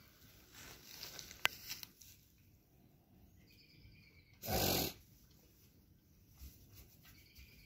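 A goat gives a single short breathy snort, a pitchless rush of air lasting about half a second, about four and a half seconds in. Faint rustling of straw comes before it.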